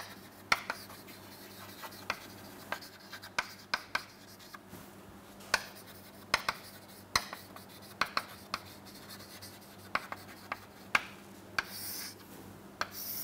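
Chalk writing on a chalkboard: irregular short taps and scratches as letters are formed, with a longer scraping stroke near the end as a line is drawn under the words.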